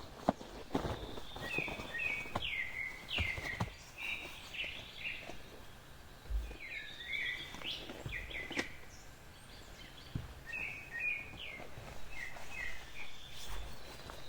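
Small songbirds chirping in quick, short phrases, over light scattered knocks and clicks.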